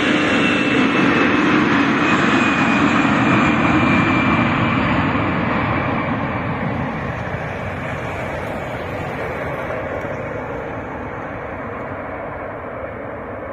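Airbus A319 jet taking off, its engines running loud with a whine that falls in pitch. The roar fades steadily from about five seconds in as the aircraft moves away.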